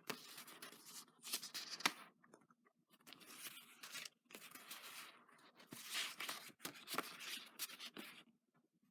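Paper craft embellishments and their packaging being handled, rustling and scraping in irregular bursts, with a sharp click a little under two seconds in and short pauses between.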